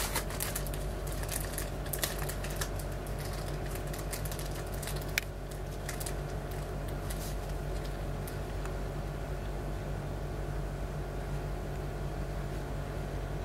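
A steady low hum with a faint higher tone over it, and scattered light clicks and taps through the first half, one sharper click about five seconds in.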